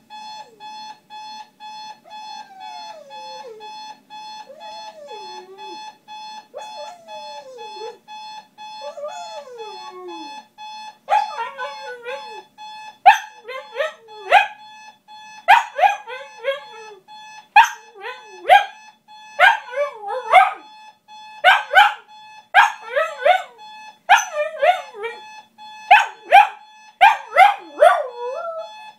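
A Shiba Inu howling over a steadily beeping electronic alarm. The dog begins with soft, falling howls about every two seconds, then breaks into loud, sharp, wavering cries in quick clusters for the rest of the time.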